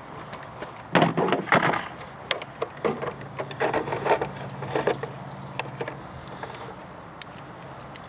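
Hard plastic clicks and knocks as a socket-set case is handled, set down and opened on the engine, with sockets and tools clattering inside. The sharpest knocks come about a second in, and the rattling thins out over the next few seconds.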